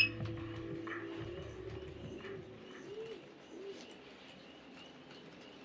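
A bird cooing faintly: three soft low notes, each rising and falling, about two to four seconds in, with a short high beep at the very end.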